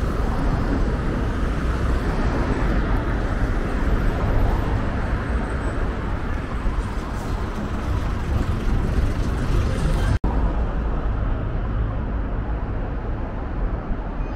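City road traffic: steady engine and tyre noise from passing cars, motorcycles and minibuses. The sound drops out for an instant about ten seconds in, where the recording is cut.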